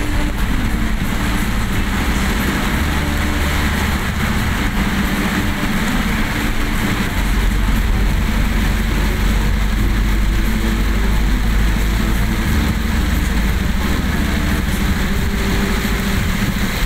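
Heavy rain falling on a car's roof and windshield, heard from inside the cabin, over the steady low rumble of the car's engine and tyres on the wet road.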